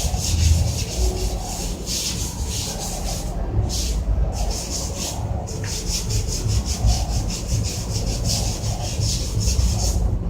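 Rapid back-and-forth scrubbing strokes on a water heater's casing, as it is cleaned for painting, with a few short pauses, over a steady low rumble.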